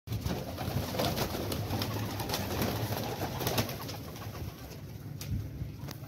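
Flock of domestic pigeons cooing, with scattered short sharp flaps and clicks, busiest in the first four seconds and easing toward the end.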